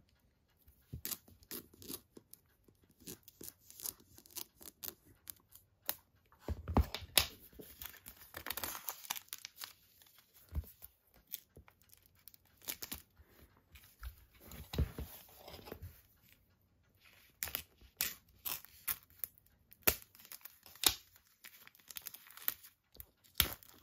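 Plastic shrink-wrap being peeled and torn off a cardboard slipcase by hand: irregular crinkling and crackling with short pauses between, busier in a couple of stretches.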